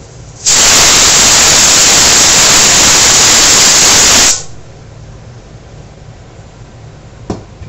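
Stovetop pressure cooker letting off steam through its whistle weight: a loud, even hiss that starts abruptly about half a second in and cuts off after nearly four seconds, the sign that the cooker has come up to pressure. A short knock near the end.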